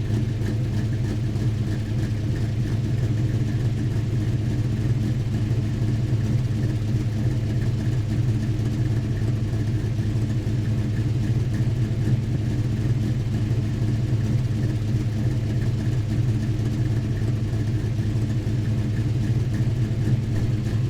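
Muscle car V8 exhaust idling steadily, a deep even rumble that neither rises nor falls.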